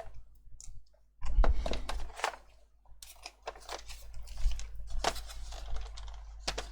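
Clicking, scraping and crinkling from the plastic housing of a car instrument cluster being handled and worked apart, starting suddenly about a second in and going on in a dense run of clicks and crackles.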